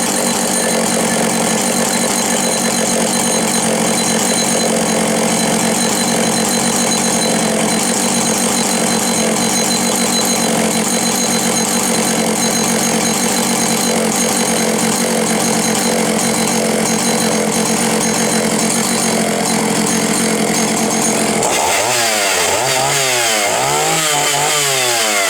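Vintage Husqvarna L65 two-stroke chainsaw running steadily at high speed, then revved up and down several times near the end.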